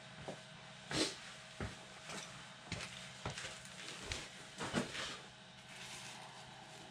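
Several separate light knocks and clicks, roughly one a second, from things being handled, over a steady low hum.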